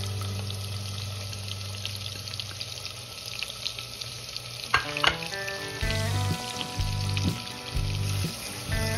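Chopped onions sizzling in hot oil with whole spices in a pressure-cooker pot, a steady frying hiss, with a couple of sharp knocks about halfway and a plastic spatula starting to stir them near the end. Soft background music with low held notes comes back in from about two-thirds of the way through.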